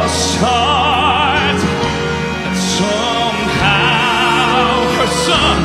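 Southern gospel song performed live: a male singer holds long high notes with wide vibrato over the band's drums and bass.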